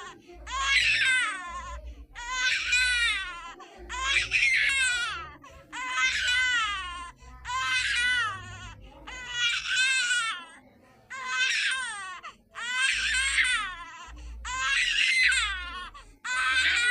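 Baby crying sound effect: a high-pitched wavering wail repeated about ten times, each cry about a second long with a short gap for breath before the next.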